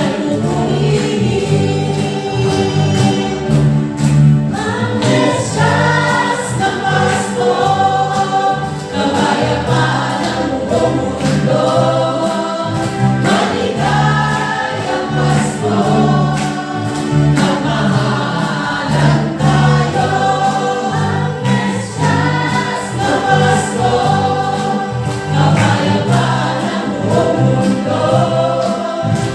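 A choir singing a Christmas carol in the gospel style, over instrumental accompaniment with a bass line and a steady beat.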